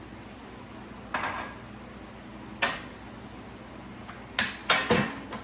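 Kitchen utensils and dishes clinking and knocking against each other, about five separate sharp knocks, three of them close together near the end, one with a short metallic ring, while lemon juice and zest go into the skillet.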